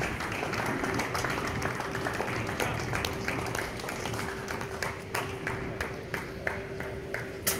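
Applause from a small group of spectators, dense at first and thinning to a few separate claps over the last seconds, with a steady hum underneath.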